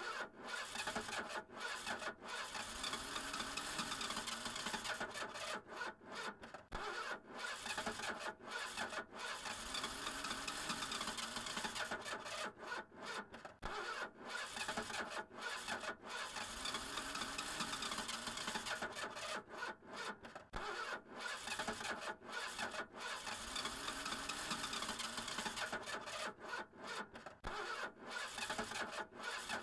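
Car engine being cranked by its starter motor in repeated attempts that don't catch, a steady grinding churn that repeats about every seven seconds: the car won't start.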